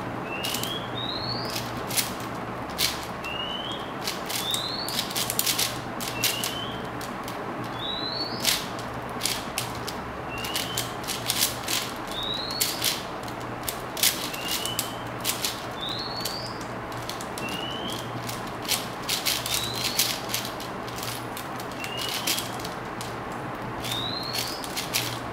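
Rapid, irregular plastic clicking of a 4x4 puzzle cube being turned fast during a speed-solve. A bird repeats a short rising chirp about every second and a half, alternating a higher and a lower note.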